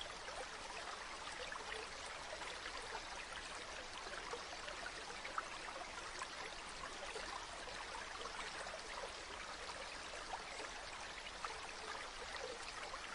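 Stream water running steadily, an even rush of flowing water flecked with small splashes and trickles.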